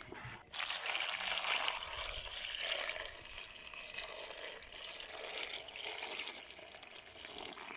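Water being poured into a basin, a steady splashing pour that starts about half a second in.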